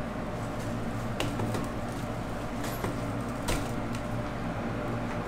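Steady droning hum of commercial kitchen machinery, such as an extraction fan, with a few light clicks and taps at irregular moments as a steak is seasoned with pepper.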